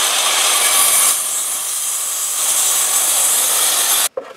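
Laser-guided circular saw cutting across a wide wooden plank, a steady, loud run of blade through wood that changes tone about a second in and cuts off suddenly near the end as the cut is finished.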